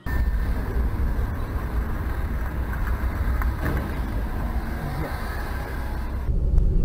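Car cabin noise picked up by a dashcam while driving: a steady low engine and road rumble with tyre noise. Near the end it changes abruptly to a louder, deeper rumble.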